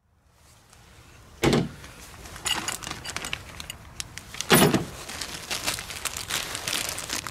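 Plastic zip-lock bag and a parts packet crinkling as they are handled, with two dull thumps, one about a second and a half in and one about four and a half seconds in.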